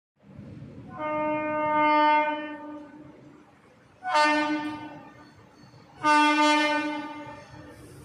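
Air horn of an Indian Railways WAP-7 electric locomotive sounding three times as its train approaches the station: one long blast of about two seconds, then two shorter blasts, each starting loud and fading.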